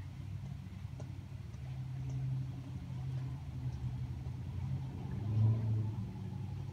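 Low, steady hum of an air-conditioner condenser unit's compressor running while the condenser fan blade stands still. The hum swells briefly about five and a half seconds in.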